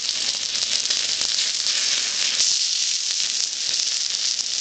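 A wood fire burning with a steady hissing sizzle and fine crackles, typical of damp wood and tinder burning.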